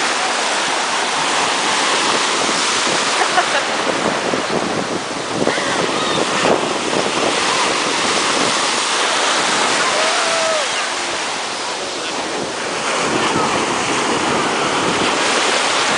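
Ocean surf breaking and washing through shallow water: a steady rushing noise that eases briefly about twelve seconds in.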